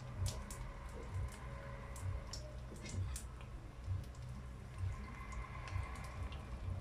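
Bourek pastry rolls frying in a little oil in a frying pan: faint, scattered crackles and pops of the hot oil, a few a second.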